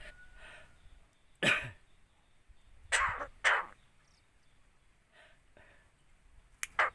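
Javan myna mimicking a human cough: one cough about a second and a half in, two more in quick succession around the middle, then two short ones near the end.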